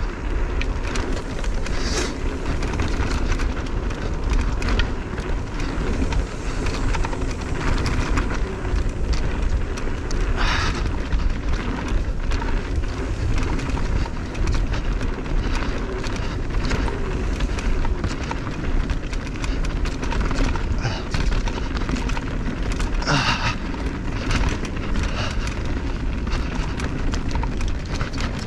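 Wind rushing over a helmet-mounted action camera's microphone, with mountain bike tyres rolling over a dirt trail on a fast downhill run. A few brief louder hisses stand out, about two, ten and twenty-three seconds in.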